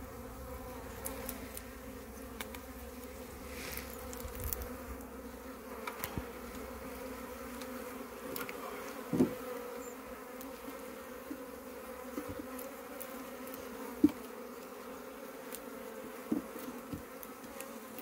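Steady hum of a honeybee colony on the open hive frames. A few short, sharp knocks from the hive tool and wooden frames being worked; the loudest comes about two-thirds of the way through.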